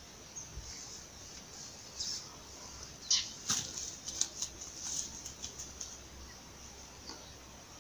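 A freshly caught tilapia flopping and thrashing while it is handled and unhooked, heard as a quick, irregular run of slaps and rustles about three to six seconds in.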